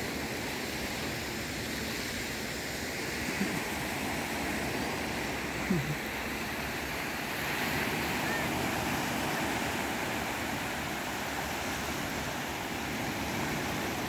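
Sea waves washing against the shore: a steady, even rushing, swelling slightly near the middle, with two faint knocks about three and a half and six seconds in. The waves are small and gentle, with the tide going out.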